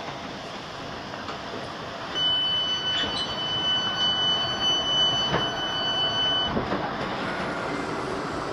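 Train passenger-door warning tone: a steady high beep held for about four seconds as the train stands at the platform and the doors are released, over the hum of the carriage and a few light knocks.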